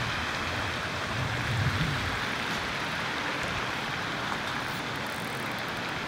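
Steady rushing outdoor background noise, with a few low rumbles in the first two seconds.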